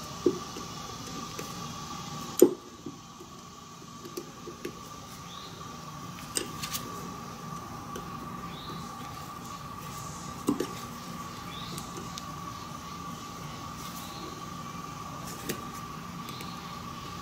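Scattered short clicks and taps of a hex-key wrench working the bolts of a 1999 Nissan Maxima EGR valve as they are snugged down, over a steady background hum. The sharpest click comes about two and a half seconds in.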